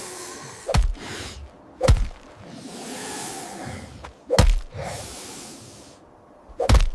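Sound-design trailer hits: four deep impacts at uneven spacing, with whooshing swells rising and fading between them.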